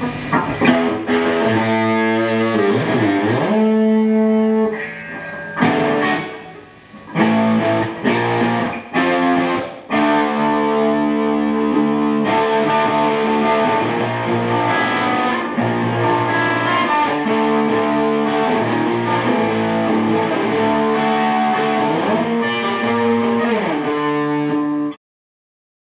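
Electric guitar playing sustained chords and notes, with a few sliding bends in pitch. It cuts off suddenly near the end.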